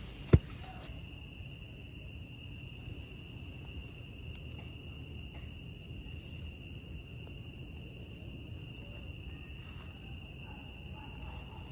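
Night insect chorus: crickets giving a steady, continuous high-pitched trill. A sharp knock comes about half a second in, and a low rustle of movement runs underneath.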